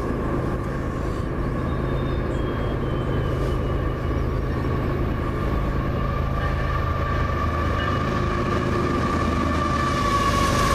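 Canadian Pacific freight train 101 approaching with its lead diesel locomotive, number 8831: a steady diesel engine rumble with a high whine over it, growing louder as the locomotive comes alongside near the end.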